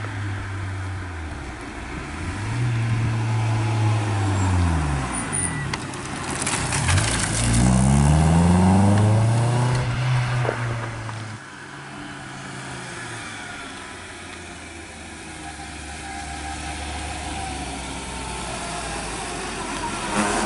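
A classic rally car's engine is revved hard through the gears, its pitch rising and falling with each shift, as it climbs past at speed. It is loudest about eight seconds in, then drops off suddenly and fades away. Near the end a second car's engine approaches.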